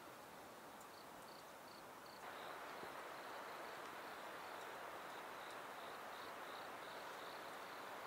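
Crickets chirping, about three short high chirps a second. About two seconds in, a steady hiss sets in and carries on, louder than the chirping.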